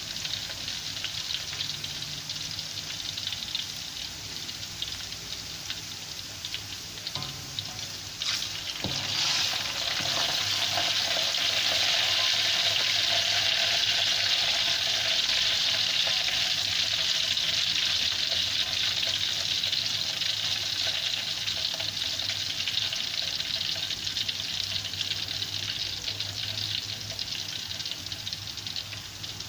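Sliced garlic deep-frying in hot oil in a wok: a steady sizzle that grows clearly louder about nine seconds in, after a light knock or two. The garlic is being left to fry until it turns golden.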